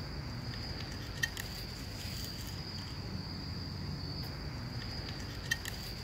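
Insects trilling on one steady, unbroken high note, over a low rumble. Two sharp clicks stand out, about a second in and near the end.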